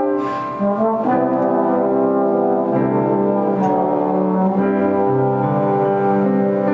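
A trombone quartet playing sustained chords in harmony, the parts moving to new notes every second or so. There is a brief breath between phrases about half a second in.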